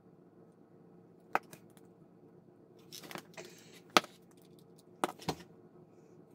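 Small handling sounds at a workbench: a few sharp clicks and taps as small plastic glue bottles and a plastic model part are picked up and set down on a cutting mat, the sharpest about four seconds in, with a brief rustle around three seconds.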